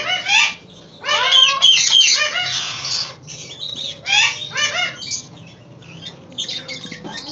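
Alexandrine parakeet squawking and chattering in several loud bursts of harsh, rapidly bending calls, with the longest, densest run about a second in.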